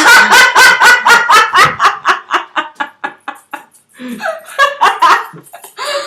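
Hearty laughter: a fast run of ha-ha bursts that slows and fades over about three and a half seconds, then a few softer chuckles.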